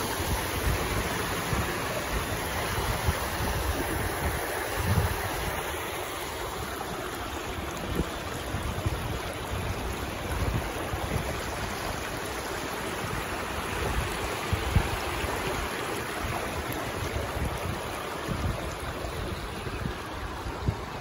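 Water rushing steadily, with wind buffeting the microphone in irregular low gusts.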